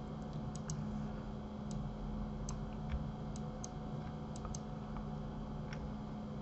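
Computer mouse clicking: about ten short, sharp clicks at irregular intervals as mesh vertices are picked one by one, over a steady low electrical hum.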